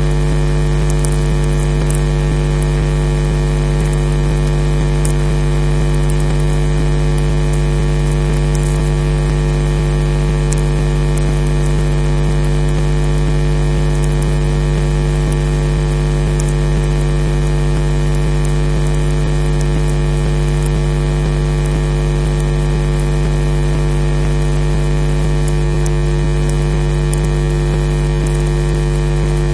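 Steady, loud electrical mains hum, a low buzzing drone that does not change, picked up on the nest camera's audio line, with faint crackles of static above it.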